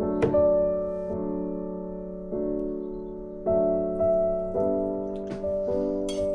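Background piano music: slow, sustained chords changing about once a second. A few light clicks sound faintly over it just after the start and near the end.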